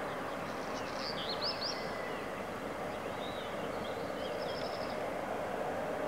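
Small birds chirping in quick runs of high notes, about a second in and again from about three to five seconds, over a steady background hum.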